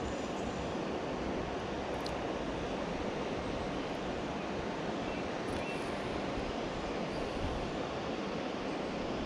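Steady rushing outdoor noise: wind buffeting the microphone, with the rush of the river's water beneath it.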